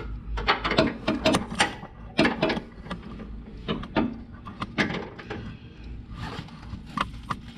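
Irregular metallic clicks and clanks of a ratcheting wrench being worked on a badly over-torqued lower control arm bolt in a Mazda MX-5 Miata ND's front suspension.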